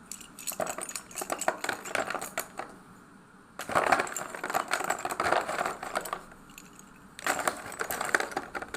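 Colour chalk being crunched in three spells of dense, crisp crackling, each a couple of seconds long with short pauses between.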